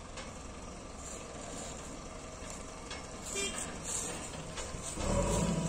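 JCB 3DX backhoe loader's diesel engine running steadily, with a brief clatter of the digging bucket and soil around three to four seconds in. About five seconds in the engine gets louder and settles into a steady drone as it takes on hydraulic load for the dig.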